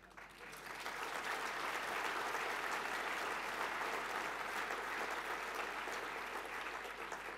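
Audience applauding, swelling over the first couple of seconds, holding steady, then dying away near the end.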